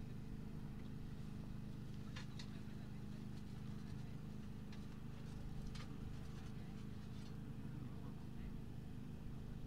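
Faint steady low hum with a few scattered light clicks.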